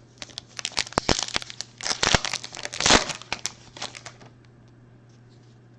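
Plastic wrapper of a Panini Mosaic basketball card pack being torn open and crinkled by hand for about four seconds, loudest near the middle, then it stops.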